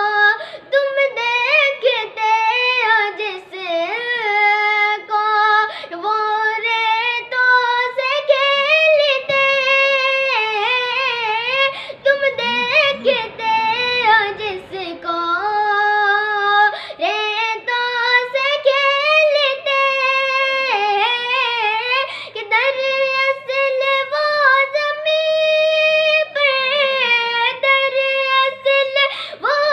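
A boy singing an Urdu manqabat (Sufi devotional song) solo and unaccompanied. He holds long notes and runs quick wavering ornaments, most of them about halfway through.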